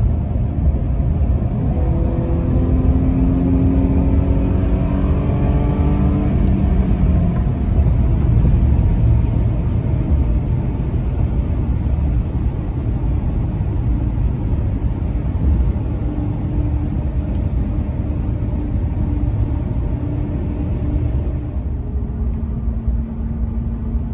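Road noise from 33x12.50 Fuel Gripper MT mud-terrain tires on pavement, heard inside a pickup's cab at highway speed: a steady low rumble, with a faint hum that slides in pitch a few seconds in and returns later.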